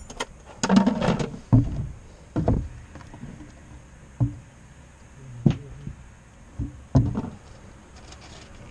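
Irregular knocks and clunks of gear being moved about in a truck's open side storage compartment.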